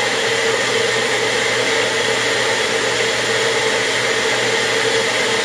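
Magic Bullet blender motor running steadily at full speed, puréeing chickpeas with water in the cup held pressed down on the base.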